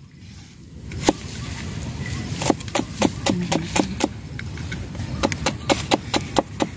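Knife chopping garlic on a cutting board: a string of sharp taps, a few scattered at first, then quick runs of about four or five a second in the middle and near the end.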